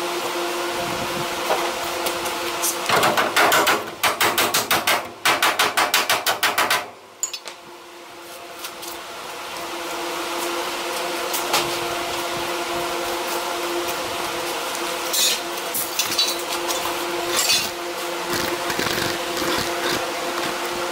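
Rapid metal hammering on the sheet steel of a car's lower A pillar, about ten blows a second in three bursts of roughly a second each, then a few scattered lighter knocks, over a steady hum.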